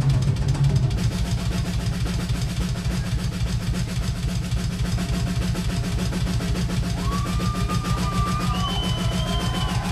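Live rock drum kit played in a drum solo: a rapid, continuous run of strokes, heavy in the low end. About seven seconds in, a held high tone that bends in pitch comes in over the drums.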